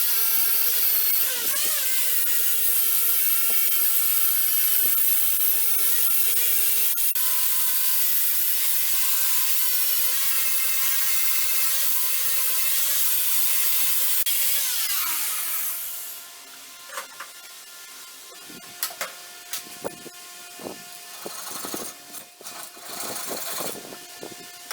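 Electric power tool running under load, a steady grinding hiss with a whine, winding down about fifteen seconds in. After that come scattered knocks and clicks.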